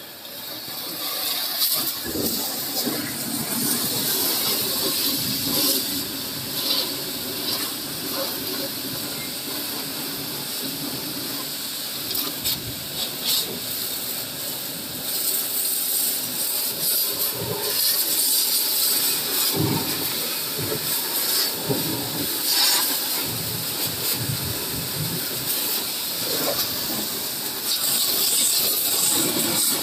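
A high-pressure washer's water jet hissing against a tractor's steel hitch and linkage, with the washing pump running underneath. The spray starts about a second in and swells and dips as the jet moves over the metal.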